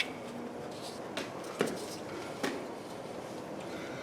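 A few short, light clicks and knocks from hands working on parts and plastic air lines under a truck, over a steady background hiss.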